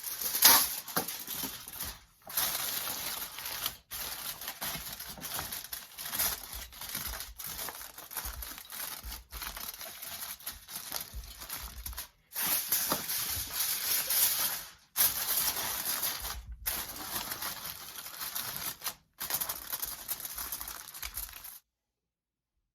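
Aluminum foil crinkling and tearing as a sheet is pulled off and pressed over a container, broken by several brief silences and stopping near the end.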